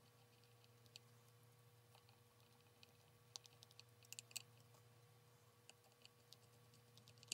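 Faint scattered clicks and ticks of a small screwdriver driving the mounting screws of guitar tuners into a headstock, with a cluster of clicks in the middle, over a low steady hum.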